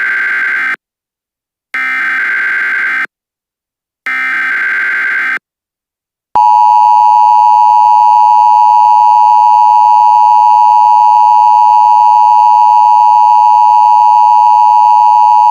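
Emergency Alert System signal: three short bursts of SAME header data tones about a second apart, then, about six seconds in, the loud steady EAS attention tone, which signals that an alert message is about to be read.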